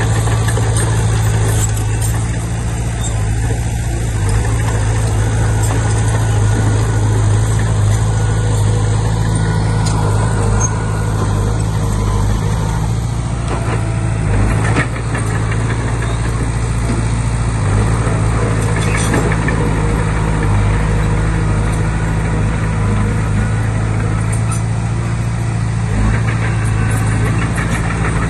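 Diesel engine of a Komatsu D20P bulldozer running at a steady speed, with a few short knocks along the way.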